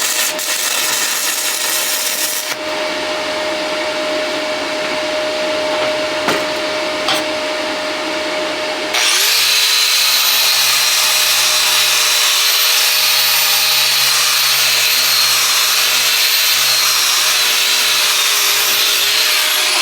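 A steady hum under a noisy hiss. About halfway through, an electric angle grinder spins up with a high-pitched whine and runs steadily. Near the end it winds down, its pitch falling.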